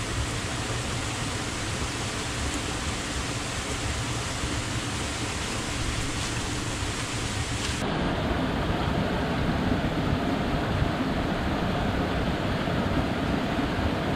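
Steady rush of a shallow rocky stream. About eight seconds in, the sound changes abruptly, losing its high hiss and growing deeper and fuller.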